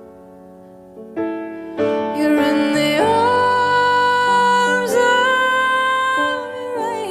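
Background music: a slow song with piano and long held sung notes. It starts soft and grows fuller about two seconds in.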